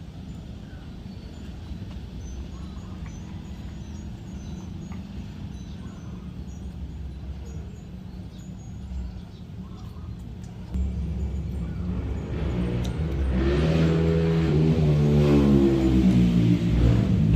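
A motor vehicle's engine: a low hum at first, growing much louder from about eleven seconds in, with its pitch wavering up and down over the last few seconds before it cuts off suddenly.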